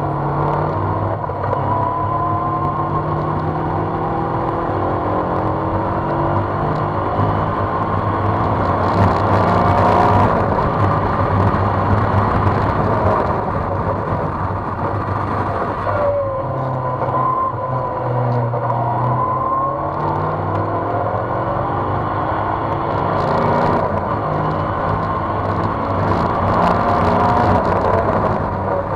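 Race car engine heard from on board in an open cockpit while lapping a circuit, its pitch repeatedly climbing and dropping back as the driver accelerates, shifts gear and brakes for corners. Wind rush on the microphone rises at the faster stretches.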